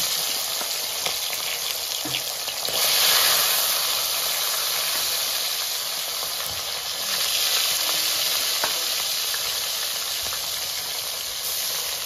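Bata fish frying in hot oil in an aluminium wok: a steady sizzle that swells louder about three seconds in and again about seven seconds in.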